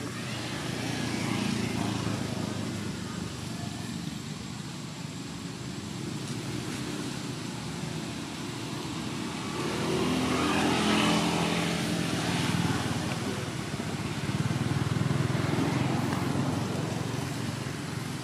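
Motor vehicle traffic running steadily, with one vehicle passing close by, rising and then fading, about ten seconds in.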